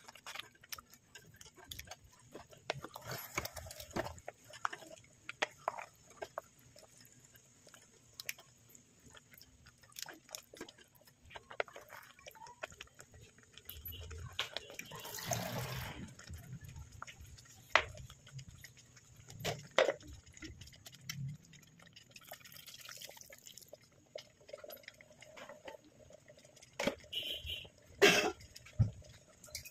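A spoon stirring spaghetti in liquid in a pot: irregular clicks and knocks with wet sloshing, busier about halfway through and again near the end.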